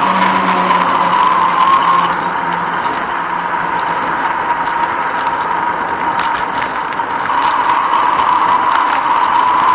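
Steady mechanical running noise from a bicycle rolling along a paved path: a constant whine over tyre and wind hiss, easing a little in the middle and picking up again near the end.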